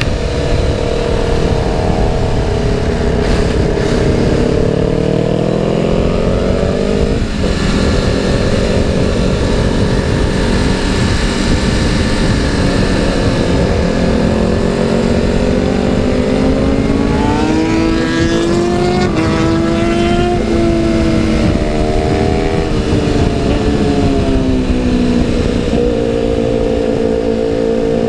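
BMW S1000RR's inline-four engine running under throttle on track, its pitch rising and falling through the gears, with a sharp shift about seven seconds in and a quick run of stepped pitch jumps around eighteen to twenty seconds in, over steady wind rush on the microphone.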